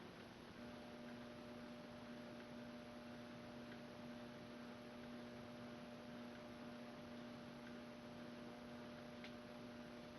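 1989 AC-742 ceiling fan running on low speed: a faint steady motor hum that comes in about half a second in, with a few faint ticks.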